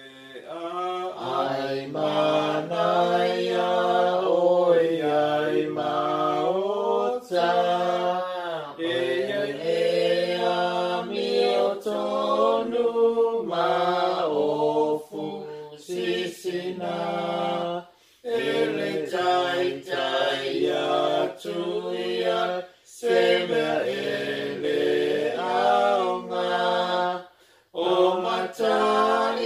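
Voices singing a slow devotional hymn with no instruments heard, long held notes gliding from one to the next, with short breaks between phrases.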